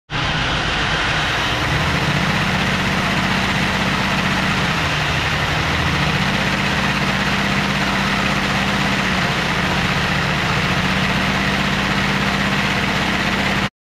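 LEGO radial six-cylinder vacuum engine running on suction from a vacuum cleaner: a steady rush of air with a low hum that wavers slightly in pitch. It cuts off abruptly near the end.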